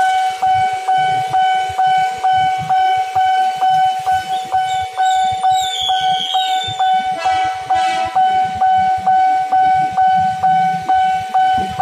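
Railway level-crossing warning bell ringing, a single-pitched electronic ding repeated about three times a second, warning that a train is approaching. Idling traffic rumbles underneath, and a short horn beep sounds about seven seconds in.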